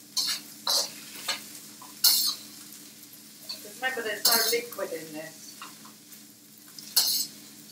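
Vegetables stir-frying in a hot wok: a faint steady sizzle, broken by sharp scrapes and tosses of the utensil against the wok at irregular intervals.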